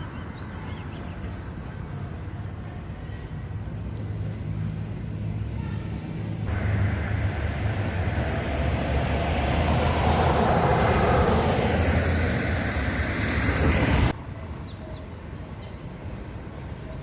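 City street traffic: a steady low rumble of passing vehicles. About a third of the way in it abruptly gets louder and swells as traffic passes close, then drops back sharply to the quieter rumble near the end.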